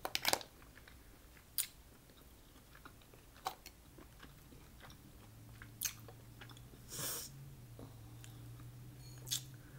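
Close-miked chewing of food, with scattered sharp mouth clicks and a longer crunchy burst about two-thirds of the way in. A low steady hum comes in about halfway.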